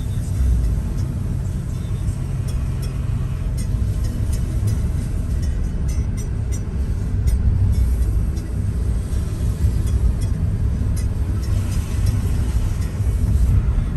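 Car interior while driving on a wet road: a steady low rumble of engine and tyre noise, with scattered light ticks.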